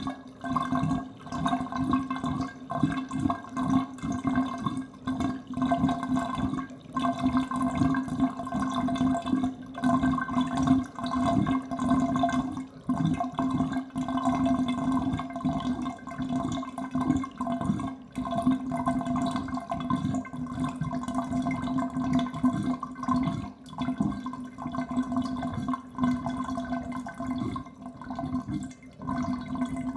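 Water draining out of a bathtub, swirling down the plughole with a steady low drone and an irregular, flickering rush.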